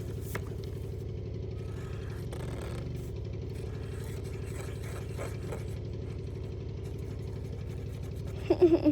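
A steady low hum, like a motor running, with a few faint light taps and scrapes.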